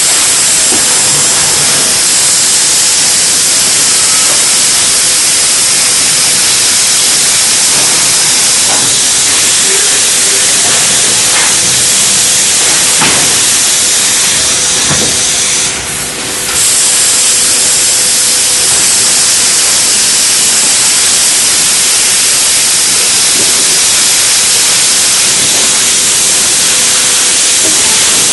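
Loud, steady hissing machine noise of a refrigerator box-covering conveyor line, with scattered light clicks and knocks; the hiss dips briefly about halfway through.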